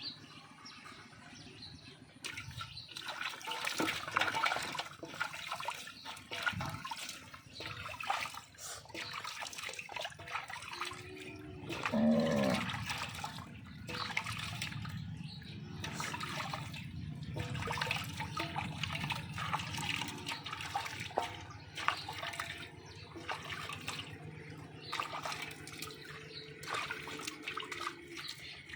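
Water running and splashing while a dog is washed, with irregular splashes and sloshes throughout. A short pitched sound comes about twelve seconds in, and a steady low hum joins after that.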